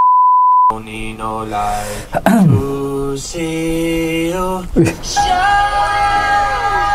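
A steady test-tone beep, well under a second long, then music with held sung notes and some sliding pitches.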